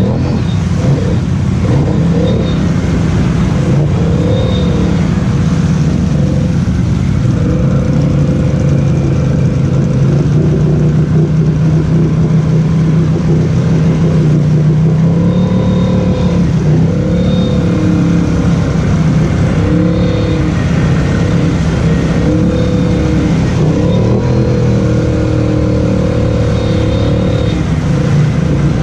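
Polaris Sportsman 850 High Lifter ATV's twin-cylinder engine running under throttle as it pulls through mud, its pitch rising and falling again and again.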